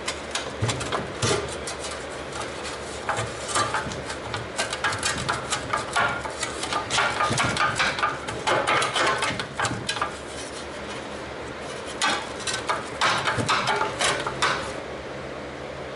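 Hand tools clinking, scraping and tapping on steel tailgate parts in irregular bursts of metallic clatter, with a steady low hum underneath.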